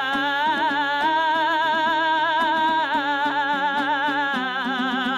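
Kazakh zhyr, epic verse chanted by a zhyrshy: a long held sung note with a fast wavering vibrato over regularly plucked string accompaniment. The melody steps to new notes about three seconds in and again near the end.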